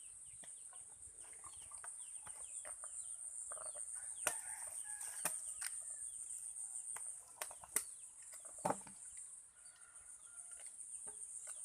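Chickens clucking and making short chirping calls over a steady high-pitched hum. Several sharp knocks come in the middle.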